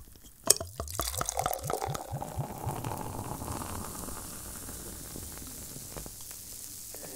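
A drink poured into a glass, starting with a sharp clink, then bubbling and fizzing. The pouring and bubbling is densest in the first couple of seconds, then settles to a steady, softer fizz.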